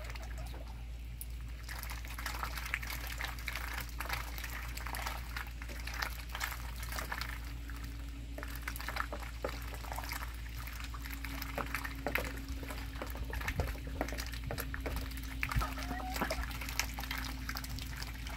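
Ducks dabbling and splashing in a shallow plastic pool, their bills dipping and sifting through the water in many small, irregular splashes and slurps. A steady low hum sits under it, and a faint steady tone comes in about seven seconds in.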